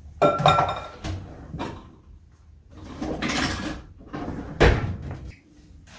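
Knocks and clatter of a kitchen drawer being opened and rummaged through, with utensils rattling for a moment about three seconds in, then a sharp knock a second later as it is pushed shut.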